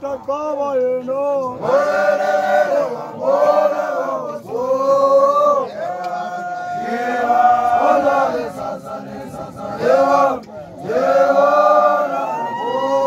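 Group of newly initiated young men (amakrwala) chanting together in short sung phrases of a second or two, with brief breaks between them.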